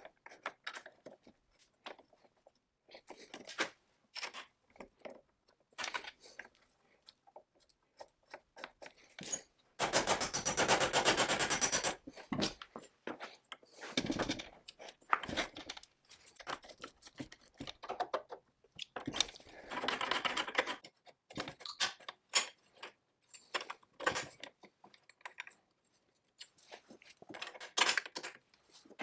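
Clicks, clinks and light knocks of small metal parts being handled and fitted on a McCulloch 99 chainsaw's handlebar throttle control and cable. About ten seconds in there is a steady run of rapid clicks lasting about two seconds, with shorter runs around twenty seconds and near the end.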